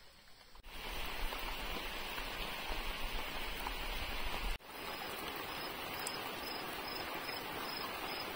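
Torrential rain falling steadily as an even hiss, cutting in abruptly under a second in and jumping sharply about four and a half seconds in. In the second half an insect chirps in a regular series of short, high chirps, about one and a half a second.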